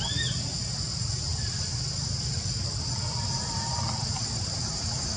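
Insects droning steadily in the trees: a constant high-pitched buzz, with a short rising-and-falling chirp right at the start.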